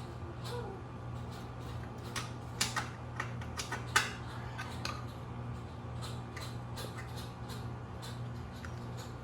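Light metallic clicks and clinks of tools and bicycle parts being handled during a teardown, bunched between about two and five seconds in with the sharpest one near four seconds, over a steady low hum.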